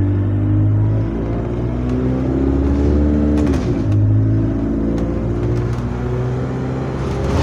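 Bus engine heard from inside the passenger saloon, pulling under acceleration: the engine note climbs steadily, dips briefly about three and a half seconds in as the gearbox changes up, then climbs again.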